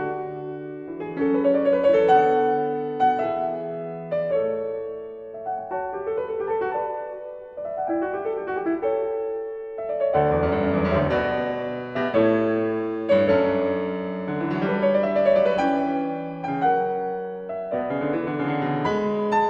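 Background solo piano music, a melody over chords; the playing grows fuller with deeper notes about halfway through.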